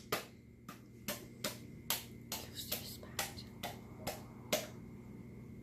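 A run of about a dozen sharp taps and knocks, two or three a second, stopping shortly before the end: an opened metal can of pork and beans being knocked to free the beans stuck under its lid.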